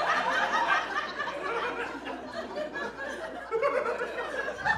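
Comedy club audience laughing at a punchline, the laughter easing off after about three seconds.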